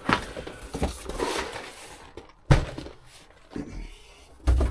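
A large cardboard box being handled: rustling and scraping, with two dull thumps as it is knocked or set down, about two and a half seconds in and again near the end.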